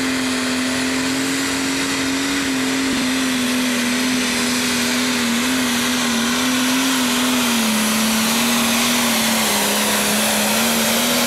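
Single-turbo diesel engine of an International Pro Stock pulling tractor running flat out under load as it pulls the weight-transfer sled: a steady high engine note over a loud hiss of turbo and exhaust. The note sags slightly about two-thirds of the way through as the load builds.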